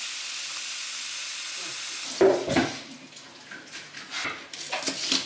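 Kitchen tap running steadily into a bowl of glass noodles (dangmyeon) to soak them, for about two seconds, stopping suddenly. Then a few sharp knocks and rustles of kitchen handling.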